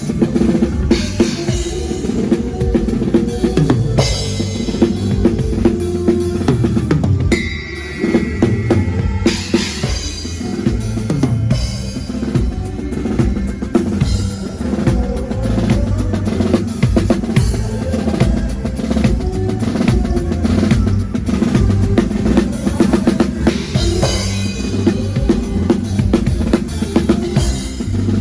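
Drum kit played in a steady rhythm, with kick drum, snare and rim hits, playing along with a band over a moving bass line. Cymbal crashes come several times.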